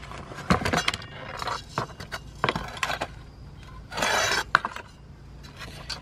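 Clinks, knocks and scrapes of a rusted metal gas water heater burner and its tube being handled on a work surface, with a longer scrape about four seconds in.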